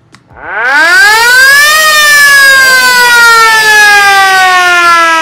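Electric ship's siren (hooter) switched on and sounding loud: its wail climbs in pitch over about a second and a half, then slowly sinks while it keeps sounding.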